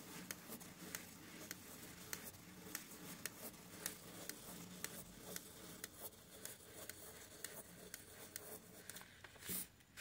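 Pen tracing on paper inside a clear plastic spirograph gear as it is turned around its ring: light scratching with a string of small irregular clicks. A louder rustle comes near the end as the gear is lifted off the paper.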